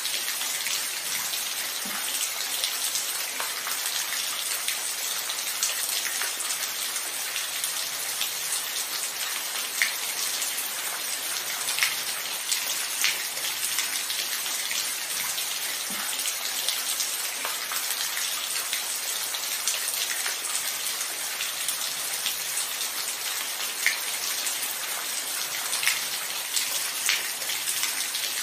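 Steady rainfall, an even hiss of rain with scattered individual drops ticking sharply on a near surface, a few louder than the rest.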